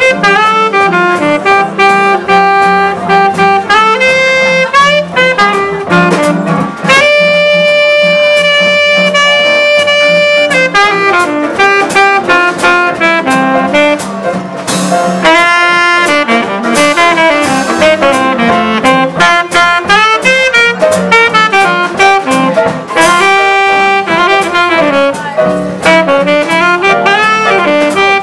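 Live small-group jazz: a saxophone plays a melodic solo line, with piano, upright bass and drums behind it. About seven seconds in the saxophone holds one long note for three or four seconds before moving on.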